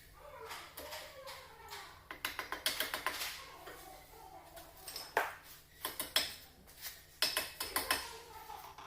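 Gas-fed MIG (semi-automatic) welder laying tack welds: several short bursts of crackling arc, with sharp clicks between them.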